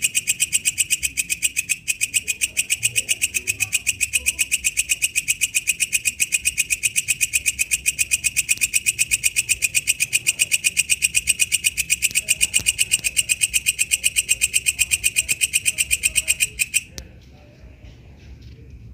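Walang kecek bush cricket calling: a fast, even train of shrill pulses, about seven a second, that stops abruptly a couple of seconds before the end.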